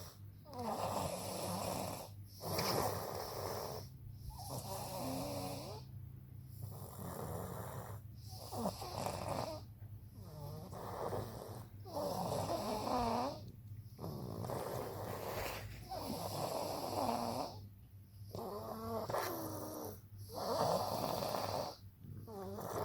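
Someone asleep and snoring, with a rasping snore on roughly every breath, about every two seconds.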